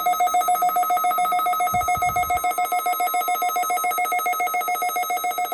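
Emergency Alert System attention tone over a radio broadcast: a loud, steady-pitched alarm tone pulsing rapidly, sounding ahead of an Amber Alert voice message.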